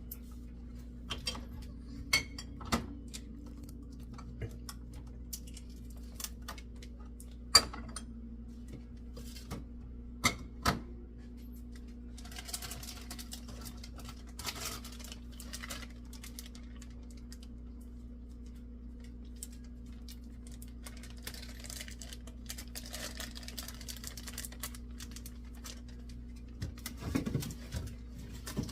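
Food containers and dishes being handled while a refrigerator is cleaned out: scattered knocks and clatters, the sharpest a little over seven seconds in and around ten seconds in, with two longer stretches of rustling, over a steady low hum.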